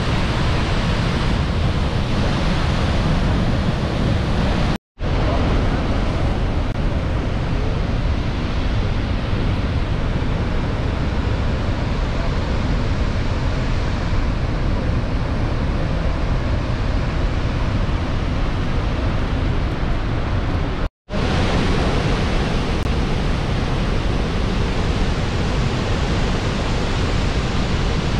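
Niagara Falls: a dense, steady rush of falling water, broken twice by a split-second silence.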